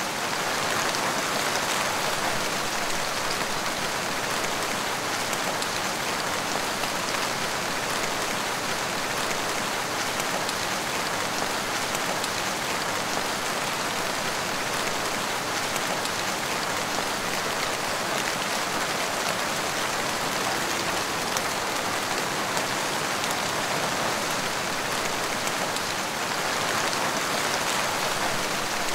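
Heavy rain falling steadily, an even, dense hiss without let-up.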